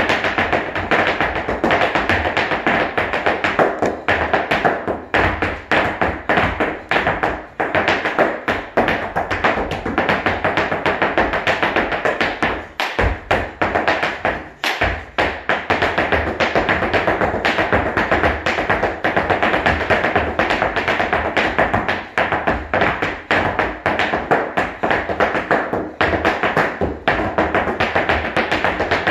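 Tap shoes striking a hard floor in fast, syncopated freestyle tap rhythms, with a couple of short pauses about halfway through.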